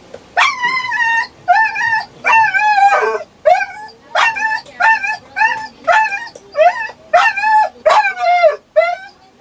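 Dog whining and howling in a run of about a dozen short, high-pitched calls, each under a second long.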